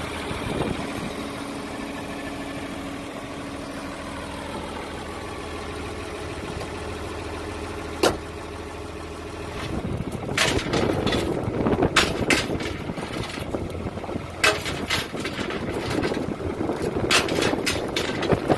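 An engine idling steadily, with a single sharp clank about eight seconds in. From about ten seconds on, heavy steel tow chains clank and rattle against the metal trailer deck and chain binders as they are pulled tight.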